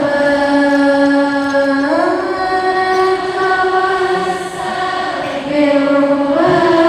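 A single voice chanting a melody in long held notes. The pitch slides up about two seconds in, eases down, and rises again near the end.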